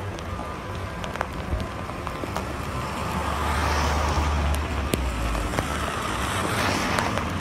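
Cars driving past on a rain-soaked road, their tyres hissing through the water with a low engine rumble. The sound swells as one car passes close about four seconds in, then again as another comes on near the end, with scattered raindrop ticks throughout.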